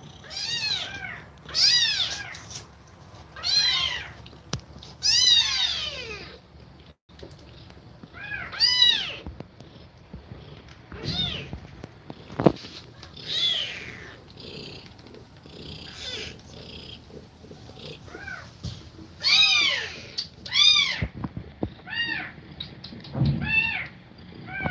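Kittens mewing: a dozen or so short, high calls, each rising and then falling in pitch, coming every second or two with short gaps.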